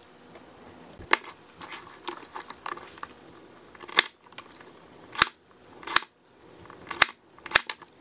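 Automatic center punch snapping down on a Kydex sheet, about six sharp clicks spaced roughly a second apart, with rustling handling of the plastic early on. Each snap marks an eyelet position through the Kydex.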